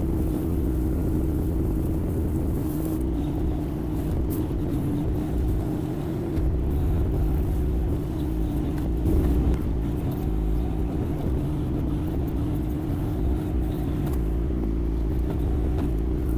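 Yanmar diesel engine of a mini excavator running steadily under working load, a constant low rumble with a steady engine tone, with a few faint clicks over it.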